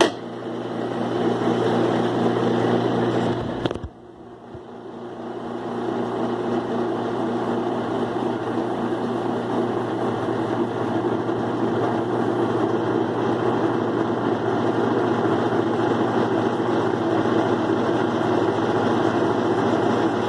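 Direct-drive Kenmore 70 Series washer running on high spin with a steady motor hum. The hum cuts off suddenly about four seconds in, then builds back up and runs steady. The newly replaced water pump makes no noise.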